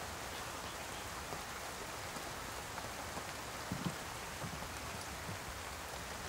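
Steady rain falling on grass and leaves, an even hiss with faint scattered drop ticks, and a couple of brief low sounds just before the middle.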